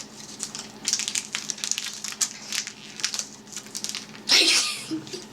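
Foil wrapper of a Pokémon booster pack crinkling and crackling as a child struggles to tear it open by hand, with a brief louder rustle about four seconds in.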